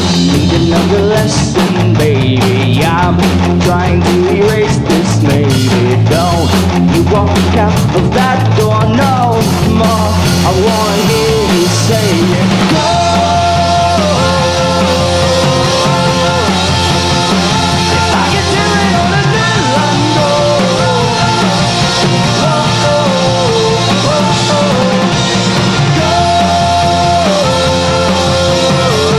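Rock band playing live on drum kit, electric guitars and bass. For the first half the drums and cymbals hit hard and fast; about halfway through the cymbal hits thin out and the guitars hold long, steady notes.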